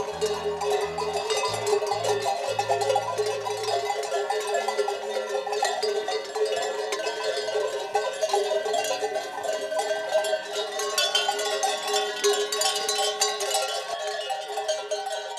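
Many sheep bells clanking continuously on a walking flock of ewes, a dense jangle of bells at many different pitches.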